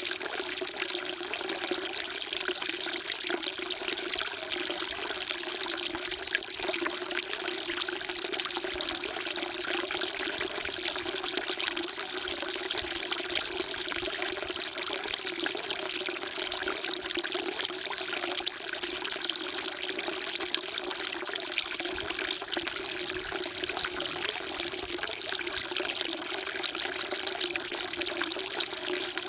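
Water pouring in a steady stream from a spout into a temple's stone water trough (sugwak), splashing continuously into the basin.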